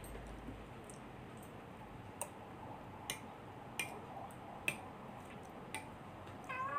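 A metal utensil clicking against a glass mixing bowl as a mixture is stirred, in sharp separate clicks about once a second. Near the end a cat starts to meow.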